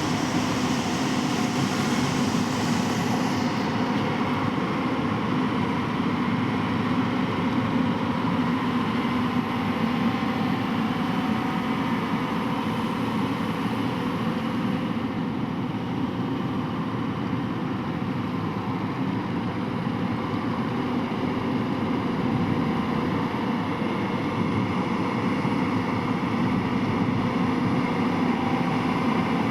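Hyundai excavator's diesel engine running steadily while it works.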